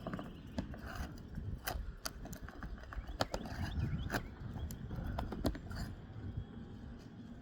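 Irregular knocks, clicks and scrapes of hand tools on roof shingles as the nails holding the rows above a shingle are worked out.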